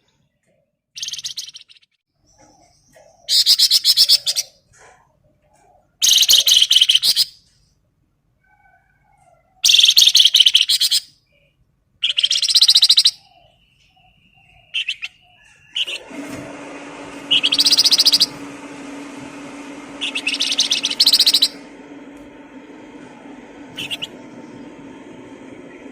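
A songbird singing short, loud, fast-chattering phrases, about nine of them with gaps of a second or two between. From about halfway through, a steady low hum sits under the song.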